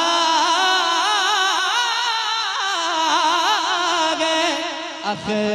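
A man singing a naat into a microphone, drawing out a long melismatic line with strong vibrato. The voice breaks off briefly near the end, then a new phrase begins.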